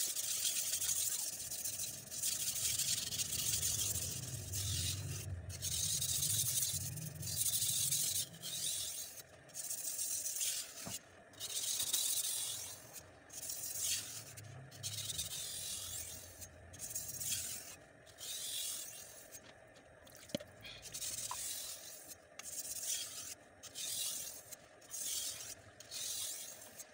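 Pirge bullnose butcher knife's steel blade stroked back and forth on a wet whetstone: a long run of gritty hissing scrapes, about one a second, with short breaks between strokes that come quicker and shorter in the second half.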